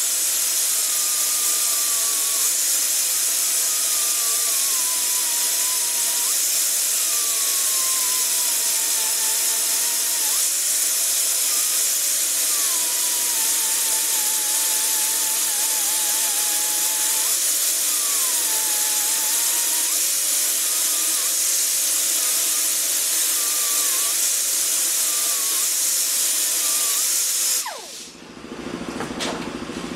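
Hand-held grinder with a small abrasive disc grinding cast iron stitching pins down on a Willys L-head engine block's machined deck: a steady, loud grinding hiss, with the motor's whine sagging and recovering as the disc is pressed on. The grinding cuts off about 27 seconds in.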